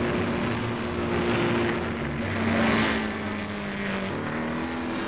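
Snowmobile engine running at speed, its steady drone shifting down in pitch about four seconds in.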